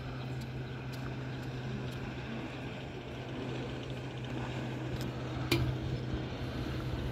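Steady low engine hum over outdoor ambience, with a sharp click about five and a half seconds in.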